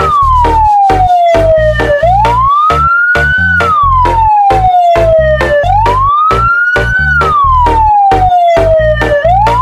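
A siren wail that rises slowly and then glides back down, repeating about every three and a half seconds, over music with a heavy, fast beat.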